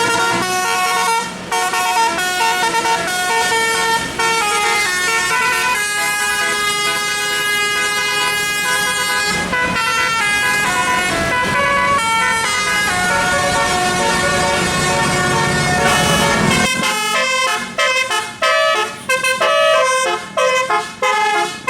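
A bus telolet musical air horn, a multi-trumpet horn, plays a tune. It sounds long held notes that step from pitch to pitch, then quick short blasts through the last five seconds.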